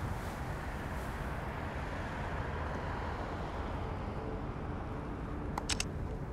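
Steady outdoor city ambience: a low hum of distant traffic with some wind. About four seconds in, faint sustained music notes come in, and near the end there is a quick run of three or four sharp clicks.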